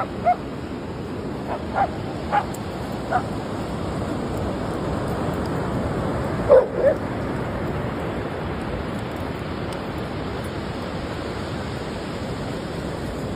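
A dog giving short, high yips: several spaced over the first three seconds, then a louder pair about six and a half seconds in, over steady background noise.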